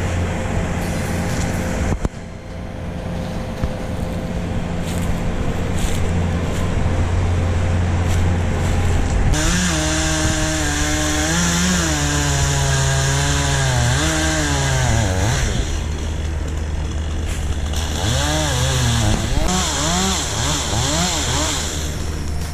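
A chainsaw running steadily, with background music; a singing voice comes in about nine seconds in.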